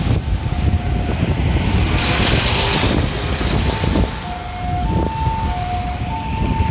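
Ambulance siren sounding a two-tone hi-lo call, switching between a higher and a lower pitch about every half second. It is faint at first and plain from about four seconds in, over a steady low rumble.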